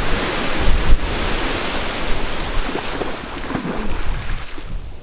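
Wind buffeting the microphone over the wash of waves on the beach, with a gust about a second in.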